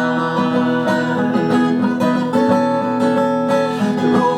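Live acoustic guitar music: an instrumental passage of sustained chords between sung lines, with the chord changing about halfway through.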